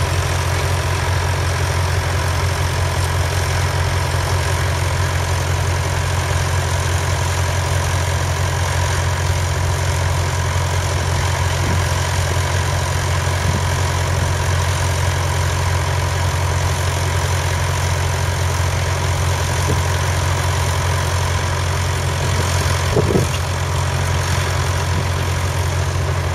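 A 1961 Massey Ferguson 35's 2.5-litre three-cylinder diesel engine runs steadily while pulling a plough through the soil. A brief louder knock comes near the end.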